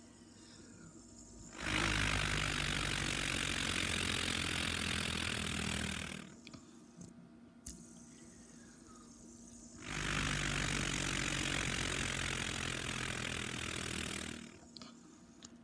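Breath blown across a spinning fidget spinner, its arms chopping the air into a whooshing buzz over a low drone that sounds like a stunt plane's engine. It comes in two steady bursts of about four seconds each.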